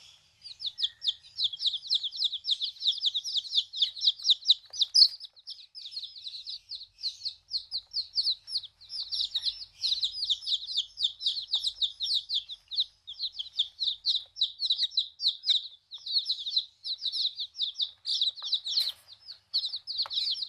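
A flock of broiler chicks peeping continuously: a dense stream of short, high chirps, many a second, with now and then a faint knock.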